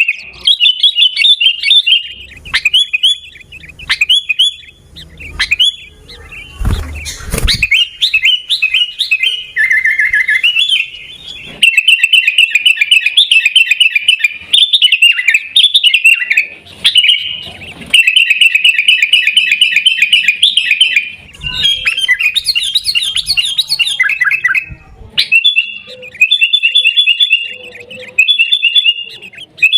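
Sooty-headed bulbul (kutilang) calling in runs of rapid, repeated chirps, with short pauses between runs. A dull knock about seven seconds in.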